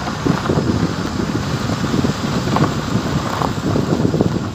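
Wind buffeting the microphone over the rough rumble of a vehicle driving along a rutted dirt road.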